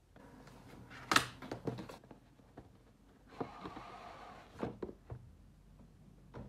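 Cardboard gift box being handled and opened by hand: a sharp tap about a second in, a few light knocks, then a soft scraping slide as the inner paperboard tray is drawn out of its sleeve, followed by a few small ticks.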